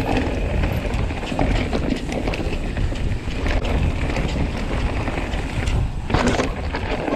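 Commencal Meta mountain bike rolling down a dirt forest trail: wind buffeting the microphone and the tyres rumbling over the ground, with clicks and rattles from the bike over bumps. A brief louder noise about six seconds in.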